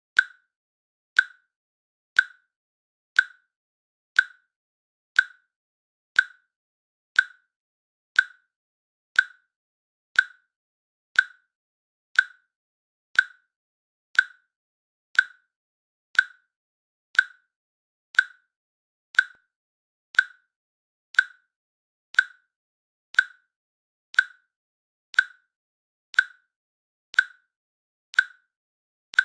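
Countdown timer's click track: a short, sharp click once every second, evenly spaced, with silence between clicks.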